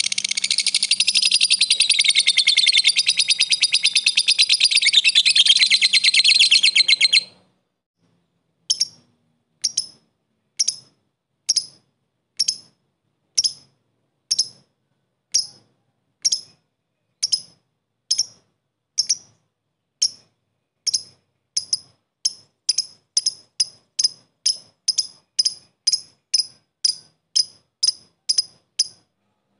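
Blue masked lovebird singing: a long, rapid, continuous chattering trill (ngekek) for about seven seconds, then, after a short pause, a run of separate short sharp chirps (ngetik). The chirps come about one a second and quicken to about two a second near the end.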